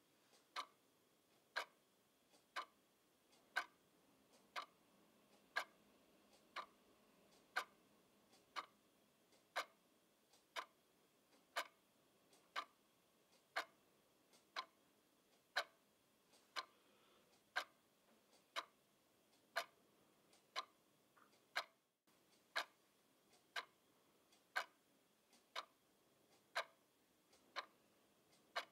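Quartz twin-bell alarm clock ticking steadily, about one sharp tick a second, some ticks with a fainter click just before them.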